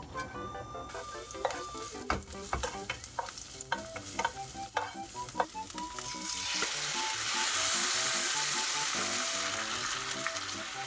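Food sizzling in a hot pan while being stirred. Scattered clicks and knocks of a utensil come first, then a loud sizzle starts about six seconds in and keeps going. Light background music plays underneath.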